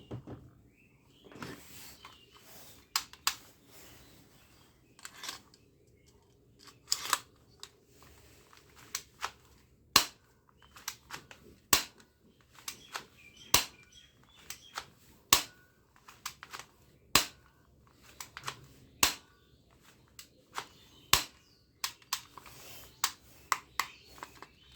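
Shell-ejecting toy gun being worked and fired: a string of sharp plastic clicks every second or two, some in quick pairs.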